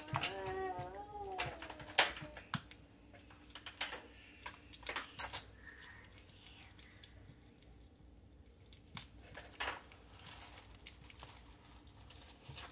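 Scattered light clicks and knocks of kitchen utensils and dishes, each a second or more apart.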